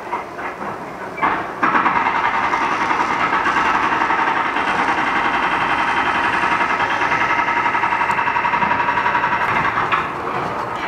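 Electrolytic weld-cleaning brush of an ANDELI TIG-250GPLC, run at 30 A in its thick-plate mode, fizzing steadily with a fine rapid buzz as it is rubbed wet along a weld seam to strip the golden heat tint. It starts about a second and a half in and stops shortly before the end.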